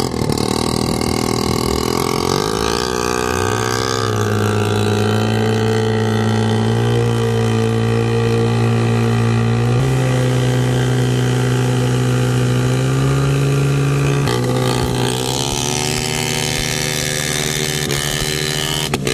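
A homemade boat's 250cc two-stroke engine running through its refitted exhaust muffler. It revs up about three seconds in, climbs in steps to high revs, then eases back to a lower steady speed about fifteen seconds in.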